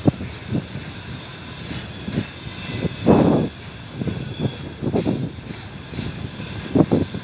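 Freight train wagons rolling past close by: wheels knocking over the rail joints in irregular thumps over a steady hiss, with a heavier rumble about three seconds in and a quick cluster of knocks near the end.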